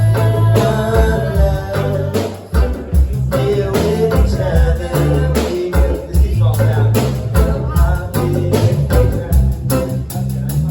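A live band playing a song, with a singer, a walking bass line and steady drum hits.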